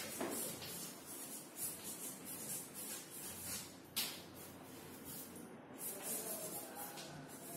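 Chalk writing on a chalkboard: a run of short scratches and taps as letters are formed, with one sharper tap about four seconds in.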